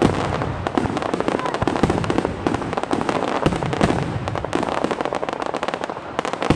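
Fireworks display: a dense, rapid crackling and popping of many bursts, with louder bangs standing out now and then.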